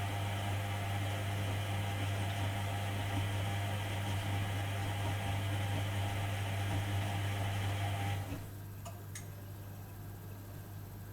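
Privileg Dynamic 4612 washing machine running with a steady hum under a rushing, noisier sound that stops about eight seconds in, leaving the hum, followed by a couple of light clicks.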